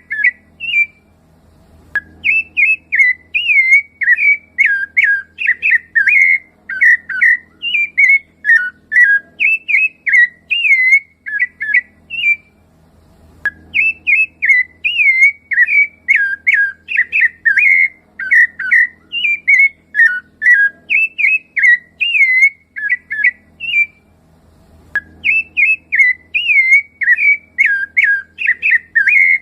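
Rufous-bellied thrush (sabiá-laranjeira) singing: long runs of quick notes that slide up and down in pitch. The runs are broken by brief pauses about every eleven seconds.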